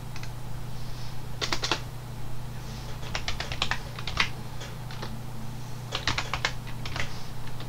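Typing on a computer keyboard in short runs of a few keystrokes, with pauses between the runs.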